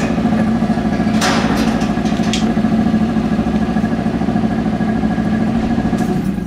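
An engine idling steadily and loudly, with two short noisy bursts over it, about a second in and just after two seconds.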